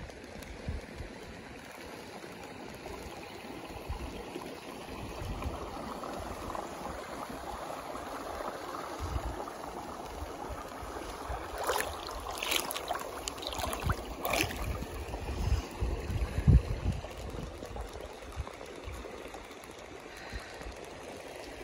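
Hot-spring creek water lapping and trickling right at a camera held at the surface, with uneven low thumps of water against it. A few brief sharp splashes come about halfway through.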